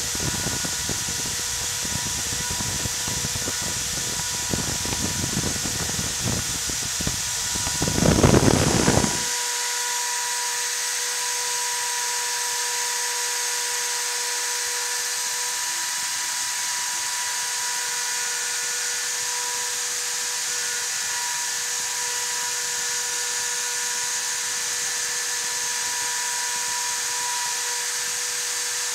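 CNC router spindle running with a steady high whine. For the first nine seconds the bit is cutting, adding an irregular rough noise that swells just before it cuts off abruptly. After that the spindle keeps spinning alone with the bit out of the material.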